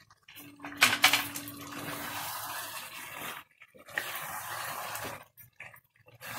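Wooden spatula stirring chicken pieces through thick gravy in a non-stick pan: wet squelching and scraping in stretches of a second or two with short pauses between them.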